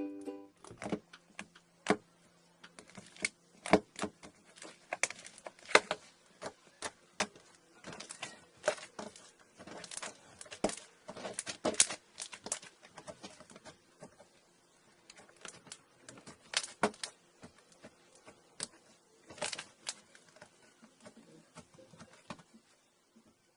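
Slime being squeezed, poked and stretched by hand, making irregular sticky clicks and small pops.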